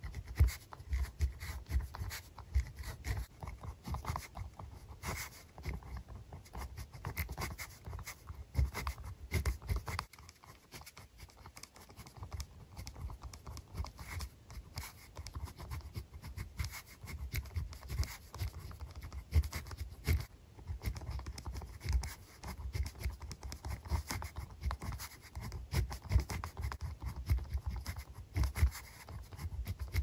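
A pen writing on lined paper, heard close up: a dense run of short scratching strokes and light taps as the tip meets and leaves the page. It goes quieter for a couple of seconds about ten seconds in.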